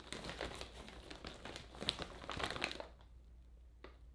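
Clear plastic bag of cannabis buds crinkling as it is handled and lifted, a dense irregular crackle for about three seconds, then quieter with a few faint rustles near the end.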